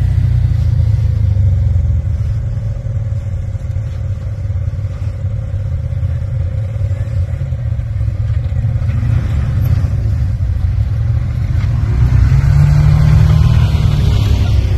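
Engines of several side-by-side UTVs running as they crawl down bare rock, with a low steady rumble that grows louder about twelve seconds in as one machine comes close.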